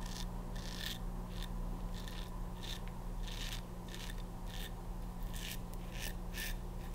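Soluna open-comb safety razor scraping through lathered stubble on the neck in about a dozen short strokes, coming quicker in the second half.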